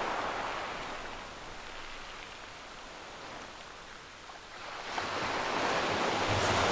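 Surf on a shingle beach: the wash of one wave fades away, then about five seconds in the next wave comes in louder with a few light clicks.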